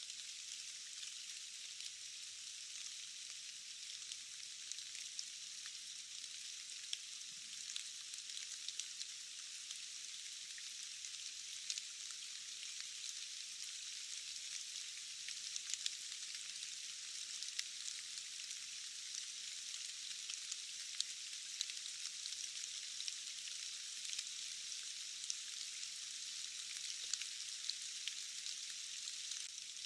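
Steady rain falling, a thin even hiss with many sharp drop ticks scattered through it and no low rumble.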